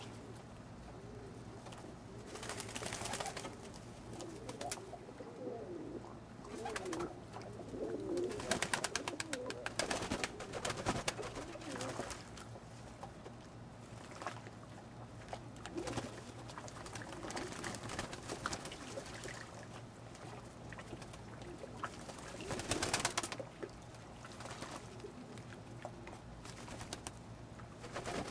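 Old German Owl pigeons cooing while they bathe in a tub of water, with repeated bursts of splashing and wing-flapping in the water. The loudest splashing comes in the middle and again a few seconds before the end.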